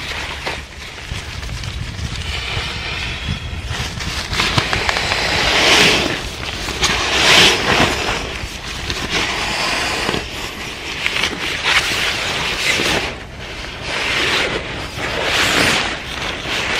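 Nylon and canvas rustling and swishing in repeated bursts as an inflatable sleeping mat and a canvas bedroll are unfolded, pressed flat and laid out, over a steady low rumble.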